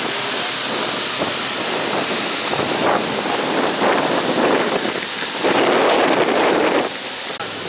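Wind buffeting the microphone: loud, uneven rumbling gusts with no clear engine note, the strongest surge a little past the middle.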